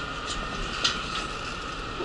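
Steady running noise inside a city bus: engine and road noise with a steady high hum, and a brief rattle just under a second in.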